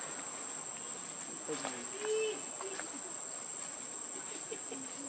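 Insects trilling in a steady, unbroken high-pitched drone, with a short voice-like call about two seconds in and a few faint clicks.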